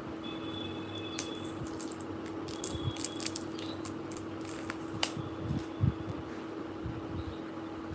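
Cosmetic products and their plastic packaging being handled: scattered light clicks, taps and rustles, a couple of firmer knocks a little past halfway, over a steady low hum.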